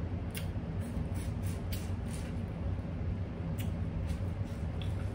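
Close-up eating sounds: chewing with a few sharp wet mouth clicks while biting into sauce-soaked seafood-boil food, over a steady low hum.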